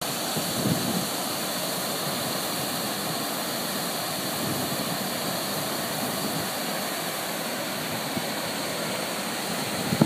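Steady rushing of river water pouring over low, wide rock-ledge cascades, with a couple of brief low buffets of wind on the microphone.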